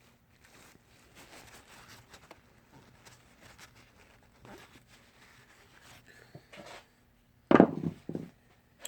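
Faint, irregular scraping of a screwdriver working around inside a clutch master cylinder bore to clean it out, followed near the end by a loud knock or clatter.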